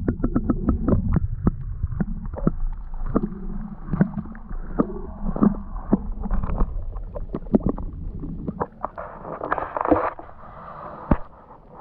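Water sloshing and splashing, with many sharp knocks and clicks of handling, and a louder burst of splashing about nine to ten seconds in.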